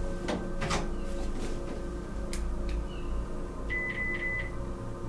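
A few handling clicks, then a short run of high electronic beeps about four seconds in: a device's low-battery warning. All of it sits over a low steady hum.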